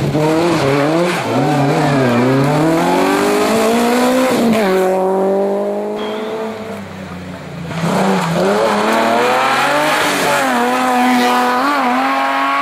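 Rally car engine revving hard on a stage, its pitch climbing and dropping over and over with throttle lifts and gear changes. About halfway through the sound falls away for a moment, then the engine comes back loud with more rising sweeps.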